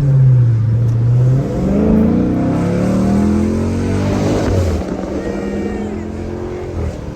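2017 Dodge Charger 392 Daytona's 6.4-litre HEMI V8 under hard acceleration from inside the cabin: a steady hum, then about a second and a half in the engine note climbs steadily in pitch, and it drops and levels off about five seconds in at an upshift.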